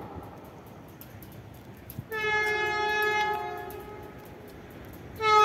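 Electric train's horn from an unseen approaching train, sounding twice: a held blast of about a second and a half about two seconds in, then a second, louder blast starting near the end.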